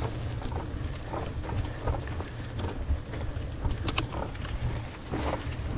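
Mountain bike's rear freewheel hub ticking rapidly and evenly while the rider coasts, over a steady low rumble of riding noise, with scattered knocks and rattles from the bike; the ticking stops a little past halfway and a couple of sharp clicks follow.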